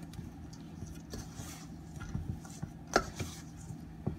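Spoon stirring a flour and coconut dough mix in a stainless steel bowl: soft scraping with scattered clinks against the bowl, the sharpest about three seconds in and another near the end.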